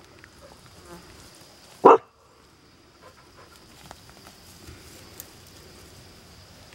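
A dog barks once, a single short bark about two seconds in; otherwise faint rustling through tall grass.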